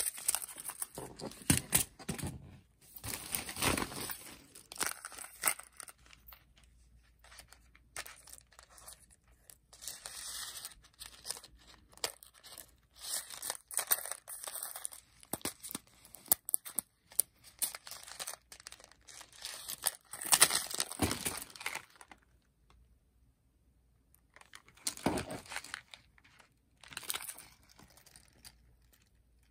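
Paper and cardboard jewellery packaging being handled and opened: irregular crinkling and tearing of paper, close up, with a quiet spell about three-quarters of the way through.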